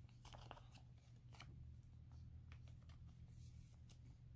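Faint rustling and light ticks of a trading card and a thin plastic card sleeve being handled as the holo card is slid into the sleeve, over a steady low hum.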